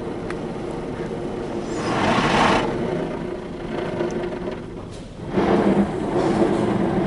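Mark VII SoftWash XT automatic car wash working over the car during its soft-cloth brush pass, heard from inside the cabin: a steady rush of brushes and water spray over a low machine hum. It swells louder about two seconds in and again around five and a half seconds in.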